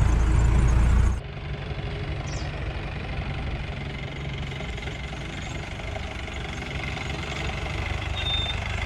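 Off-road jeep's diesel engine idling steadily. A louder low rumble in the first second cuts off suddenly.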